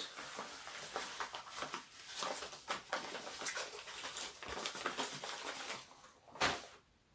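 Rustling and crinkling of plastic packaging as parts are handled, with scattered small clicks and a louder knock about six and a half seconds in.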